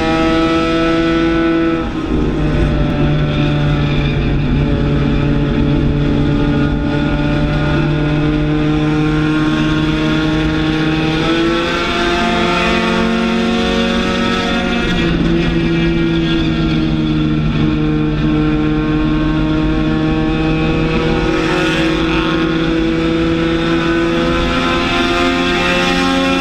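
Race car engine at sustained high revs, heard inside the stripped cabin, its pitch easing off and climbing again as the car laps the short oval, with a brief dip about two seconds in.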